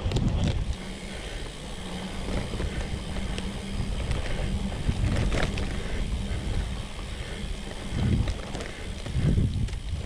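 Priority 600X trail bike ridden over dirt single track: a steady low rumble of tyres and wind on the microphone, with several louder knocks from bumps in the trail.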